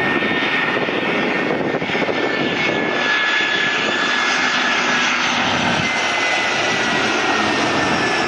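Airbus A320-family jet airliner on final approach with gear down, its turbofan engines giving a steady rushing rumble with a thin high fan whine that slowly falls in pitch as the aircraft passes.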